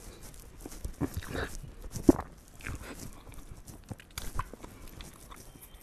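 A man eating soft pastry with his fingers: wet chewing and lip-smacking with short mouth noises, and a sharp smack about two seconds in.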